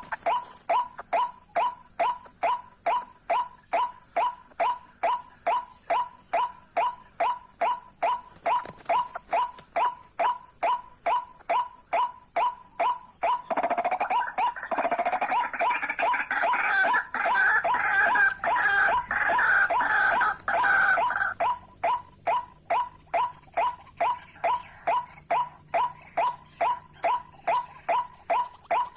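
White-breasted waterhen calls: a steady, very even series of short croaking notes, about two to three a second, typical of a repeated lure call used for trapping. From about 13 seconds in to about 21 seconds a louder, dense jumble of raucous waterhen calls joins it, then the steady series goes on alone.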